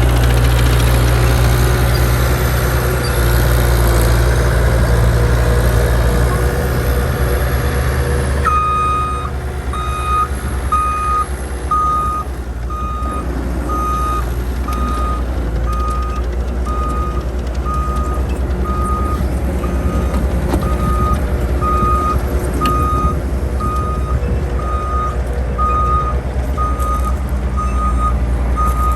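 CAT 287C tracked skid steer's diesel engine running under load. About a third of the way in, its backup alarm starts beeping about once a second as the machine reverses, over the engine.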